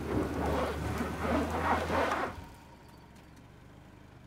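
2020 Subaru Outback XT's tyres spinning on a steep slope of dry, loose dirt, churning the surface over the steady drone of its turbocharged flat-four pulling under throttle, with no grip to climb because X-Mode is off. It cuts off sharply about two seconds in, leaving a faint low hum.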